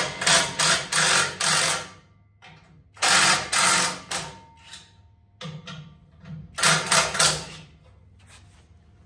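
A wrench loosening the front subframe mounting bolts of a 1968 Pontiac Firebird in short, loud bursts, grouped in four clusters, so the subframe can be lowered onto a bottle jack.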